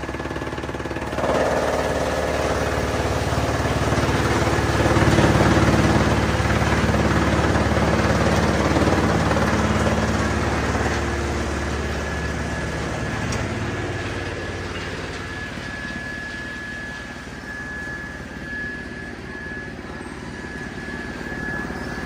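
Drum wood chipper running and chipping a feed of branches and bark, with a steady hum and a thin high whine. It grows louder about a second in and stays loud with dense chipping noise until about thirteen seconds, then eases off.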